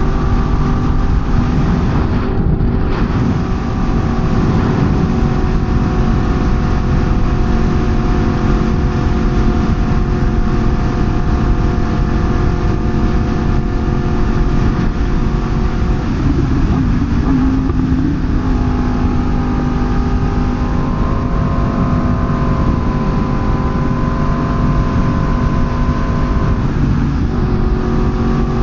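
Sportbike engine running at a steady cruising speed under heavy wind rush. About sixteen seconds in, the engine note glides to a new pitch and then holds steady again.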